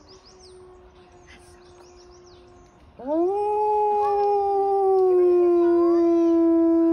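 Gray wolf howling: after a pause of about three seconds, a new long howl swoops quickly up to its pitch and holds there, sinking slightly toward the end.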